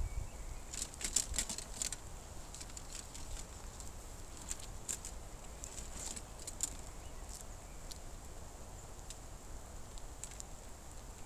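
Scattered light clicks and rustles of leather straps and buckles as a leather back quiver and arm guard are put on and adjusted, with a quick cluster of clicks about a second in.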